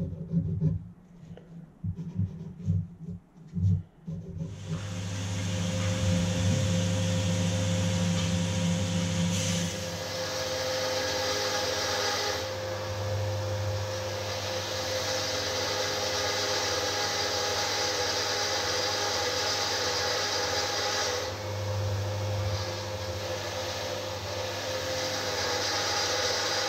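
A few irregular scrapes and knocks, then an electric belt grinder running steadily as a steel sword blade is held against the belt and ground. The grinding is a dense hiss over a low motor hum and shifts a little as the blade's pressure changes.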